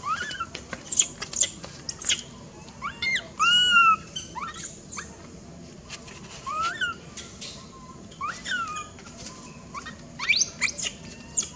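Baby macaque squealing and crying in repeated short, high-pitched calls that rise and fall in pitch. The longest and loudest is an arched cry about three and a half seconds in, and a quick run of sharp rising squeaks comes near the end.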